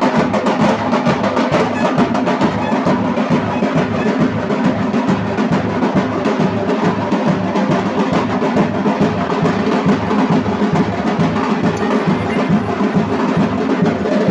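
Fast, loud drumming. A steady low beat falls about two to three times a second, with rapid sharp strokes packed over it.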